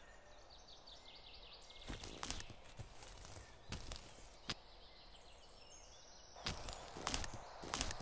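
Footsteps crunching on dry leaf litter: a few scattered steps, then a quicker run of them near the end. A fast series of faint high chirping notes sounds in the first two seconds.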